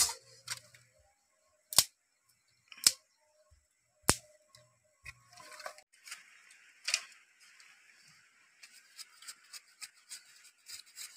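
Dry firewood cracking: a handful of sharp cracks a second or so apart. Then a wood campfire crackling, a steady hiss with many small pops.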